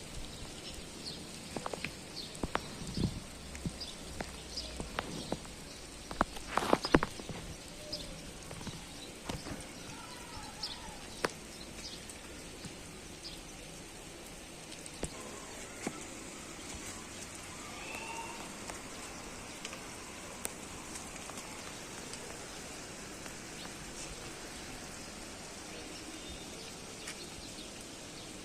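Steady rain falling and pattering on a rooftop, with scattered sharp knocks and clicks, the loudest cluster about seven seconds in, and a few faint short chirps.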